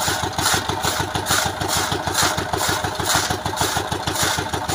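Engine-driven chaff cutter running, its small engine thudding rapidly and evenly while dry fodder stalks are fed in and chopped.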